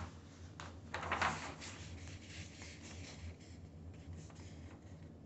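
A large sheet of drawing paper rustling as it is handled and lifted up. The loudest rustle comes about a second in, with fainter rustles and taps after it.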